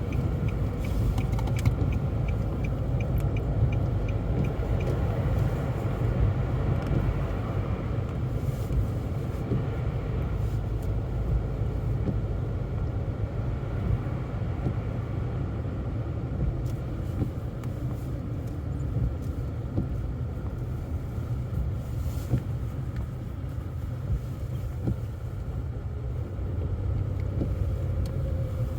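Steady low rumble of a car's engine and tyres heard from inside the cabin while driving. A quick, regular light ticking runs through the first five seconds or so.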